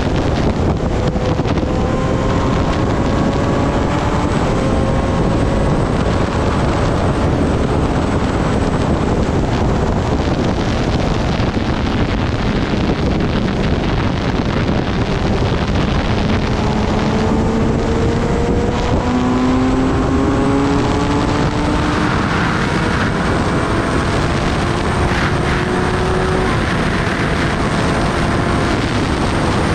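Motorcycle riding sound dominated by heavy wind rush on the microphone, with the Kawasaki ZX-10R's inline-four engine note underneath rising slowly in pitch several times.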